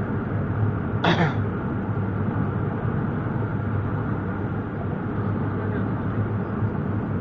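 Steady road and engine noise of a car at highway speed, heard inside the cabin as a low hum with tyre rumble. About a second in, a person briefly clears their throat once.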